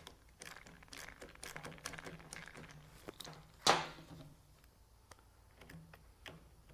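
Hands handling the parts of a disassembled angle grinder and tools on a workbench: scattered small clicks, taps and rattles, with one louder knock a little before four seconds in.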